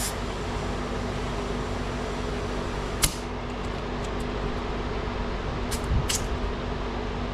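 Air compressor running steadily, inflating a plugged truck tire toward 40 PSI. A few sharp clicks come about three seconds in and twice around six seconds.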